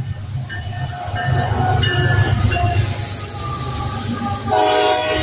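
Diesel freight locomotives passing close by, their engines rumbling louder as they come alongside, with high squealing tones from the steel wheels on the rail coming and going above the rumble.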